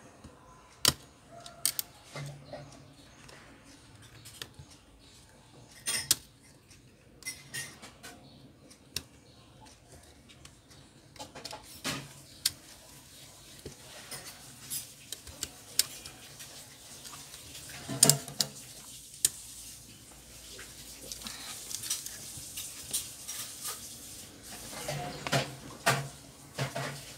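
Plastic clips of a Cherry Mobile Flare J3 smartphone's midframe clicking and snapping as a thin pry tool works around the edge to release it, with small handling knocks of the phone parts and tool. The sharp clicks come irregularly, the loudest about eighteen seconds in and a quick cluster near the end as the frame comes free.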